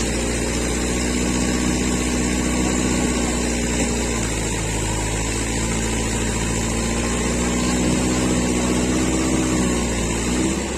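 Tractor engine running steadily, its pitch shifting about four seconds in and again near the end.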